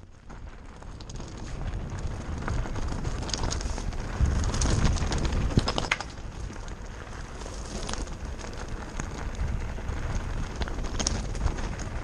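Mountain bike descending a rocky trail at speed: wind rumbling on the microphone and tyres crunching over loose stones, with scattered clicks and rattles from the bike. It starts quieter and builds over the first couple of seconds.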